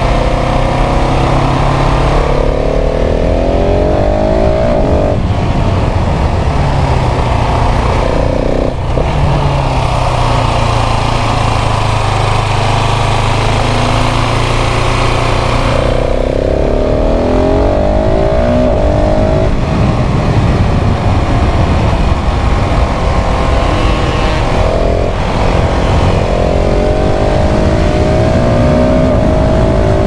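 KTM 690 SMC R's LC4 690 cc single-cylinder engine under way, pulling hard with the revs climbing and dropping back several times as the rider shifts and rolls the throttle on and off.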